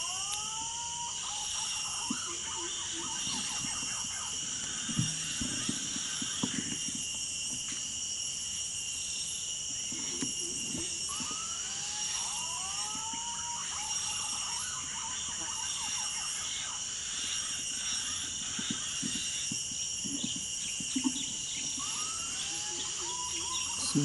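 Steady insect chorus of crickets with three groups of whistled green pigeon (punai) calls, each a few curving notes, spaced about ten seconds apart. A few soft knocks and rustles underneath.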